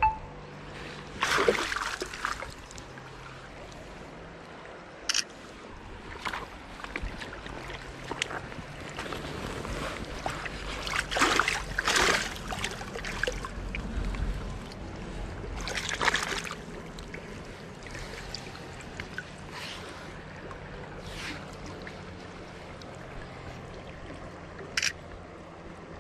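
River water running, with several splashes of water being stirred by hand, typical of a caught rainbow trout being held in the current for release. A few short sharp clicks come in between.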